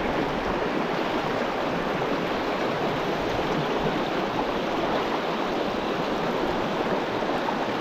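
Water of a small, shallow mountain creek running over rocks close by, a steady rush.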